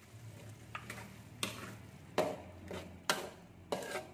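A utensil scraping and knocking against a metal wok while stirring a wet spice sauce. The first second and a half is quiet, then come sharp strokes about two a second.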